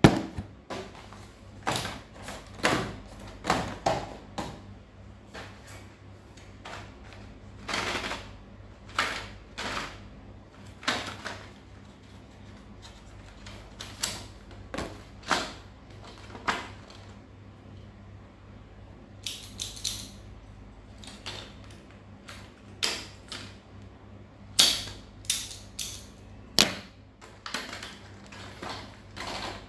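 Hands handling plastic blister packs and cardboard-backed stationery sets: irregular sharp clicks, taps and crackles of hard plastic packaging, with a faint steady low hum underneath.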